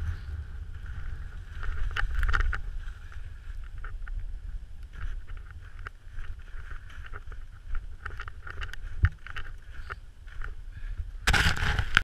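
Wind noise on the microphone, with irregular crunching and rustling from footsteps and movement over snow. A louder burst of rustle comes near the end.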